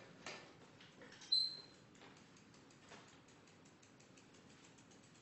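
Faint handling noise on a clip-on microphone. A soft knock comes first, then a short, sharp high squeak about a second in, then faint rapid ticking and rustle.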